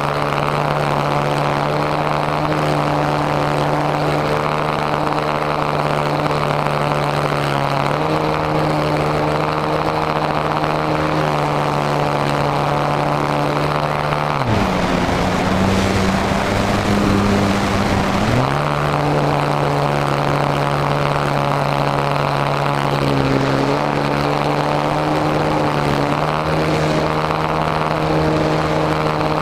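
RC model airplane's motor and propeller running steadily, heard from a camera mounted on the plane, with wind rush over it. The pitch falls sharply about halfway through and climbs back some four seconds later, with smaller shifts in pitch before and after.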